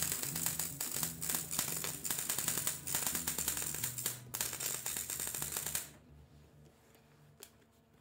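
Electric arc welding on steel: the arc crackles and spits steadily over a low hum, then stops abruptly about six seconds in, leaving quiet with a single click.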